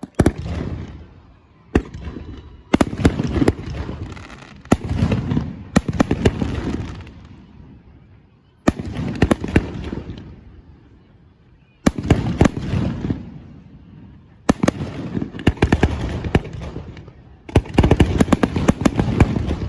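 Fireworks display: aerial shells bursting in a series of loud bangs, each followed by a run of crackling that dies away. The bursts come closer together near the end.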